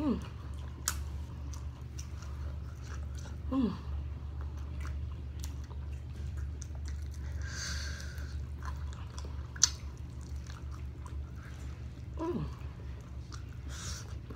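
Close-up chewing and biting on fried chicken wings coated in sticky sauce, with wet mouth sounds and a loud click about two-thirds in. A steady low hum runs underneath, and short falling squeaky tones come at the start, about a third in, and near the end.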